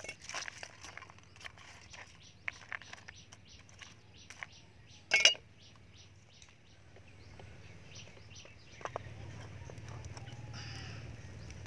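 Light clicks and knocks of lemongrass stalks and galangal slices dropped onto snail shells in a metal pan, with one sharper knock about five seconds in. From about nine seconds a steady low rumble comes in.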